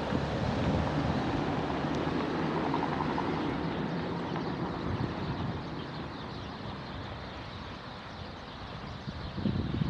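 Strong wind rushing over the microphone, a steady low rumble that slowly eases off, with gusts buffeting the microphone again near the end.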